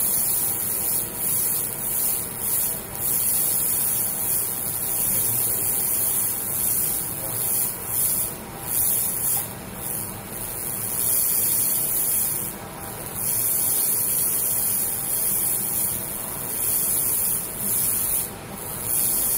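100 W laser cleaning machine ablating paint from a wooden block: a steady high-pitched hiss as the scan line sweeps the wood, with a few short dips in level.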